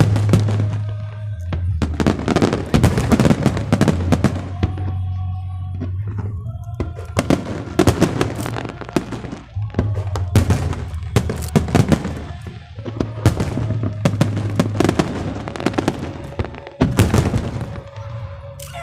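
Fireworks show: aerial shells bursting in rapid, overlapping bangs and crackles, over music playing.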